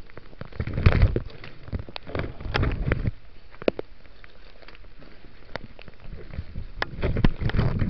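Leafy branches and foliage rustling and crackling right against the camera, with rough handling bumps in three louder bouts.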